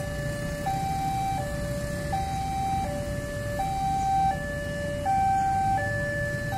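Railway level-crossing warning alarm sounding a steady alternating two-tone signal, high and low tones switching about every 0.7 seconds, while the barrier arms lift to reopen the crossing.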